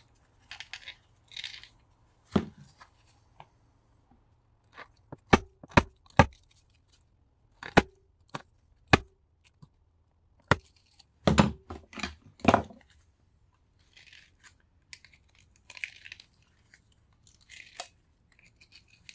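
A copper-wound electric motor from a hedge trimmer being taken apart with hand tools: scattered sharp metal clicks and knocks, a dozen or so, with a few short scraping noises in between.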